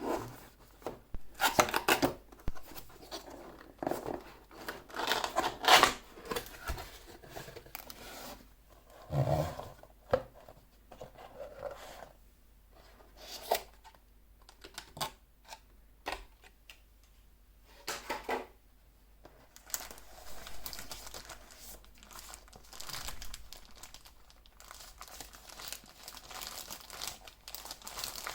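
Keyboard packaging being handled and opened: cardboard and plastic wrapping rustling, crinkling and tearing in irregular bursts, with a few sharp knocks.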